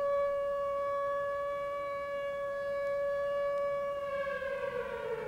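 Civil defense air-raid siren holding one steady wailing tone, then starting to wind down in pitch about four seconds in.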